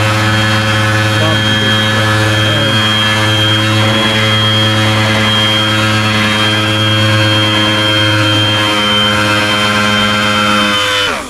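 Pneumatic orbital sander running steadily at full speed with a loud, even whir, then let off about eleven seconds in and winding down with a falling pitch.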